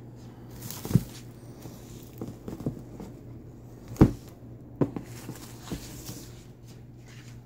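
Shrink-wrapped sneakers being handled on a cardboard shoe box: a few knocks, the loudest about four seconds in, with crinkling of the plastic wrap, over a steady low hum.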